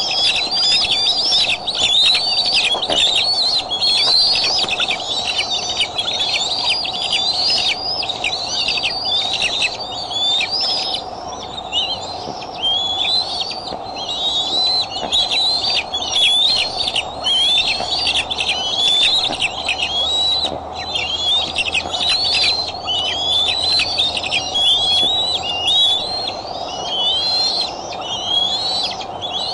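Dense, continuous high-pitched bird chirping, with many short calls overlapping one another, over a steady faint hum.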